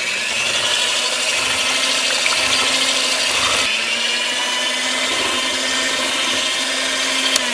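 Electric hand mixer with twin wire beaters running steadily at high speed, whipping egg whites to stiff peaks in a plastic bowl: a constant motor whine with the whir of the beaters.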